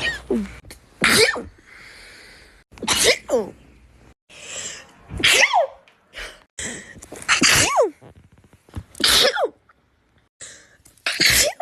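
A run of human sneezes, one every second or two, each a loud burst with a cry that falls in pitch, with softer in-breaths between them.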